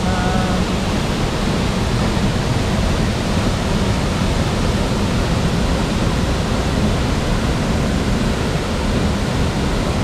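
Loud, steady rush of falling water from a waterfall: an even roar with no breaks.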